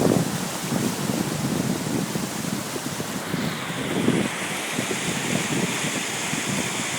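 Wind buffeting the microphone in gusts over a steady rush of water.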